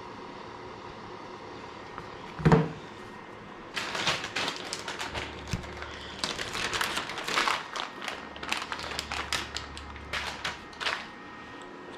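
A single heavy thump, then several seconds of irregular clicking, tapping and rustling, like objects being handled and set down.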